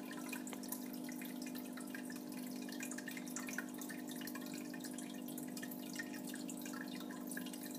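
Aquarium filter running: water trickling and dripping into the tank over a steady low hum from its pump.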